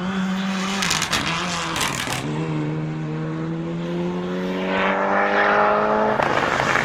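Rallycross car engine at full throttle: a steady note with a few sharp crackles, then a long rising pitch for about four seconds that drops suddenly near the end.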